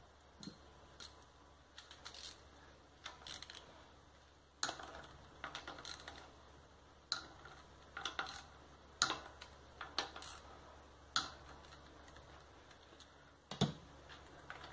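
Irregular light clicks and taps of a hand tool against the metal housing of a Honda Civic electric power-steering rack as it is being taken apart, with one louder knock near the end.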